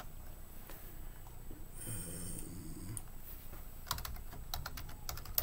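Computer keyboard keys clicking a few times near the end, as an expression is typed in. About two seconds in there is a soft, breath-like rushing sound.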